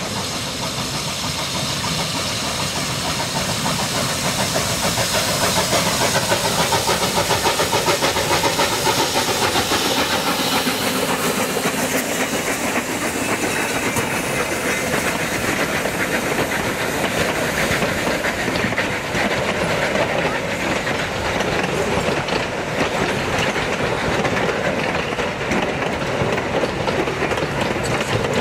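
Narrow-gauge steam locomotive working past with exhaust and hissing steam, then a string of wooden passenger coaches rolling by with the clickety-clack of wheels over rail joints.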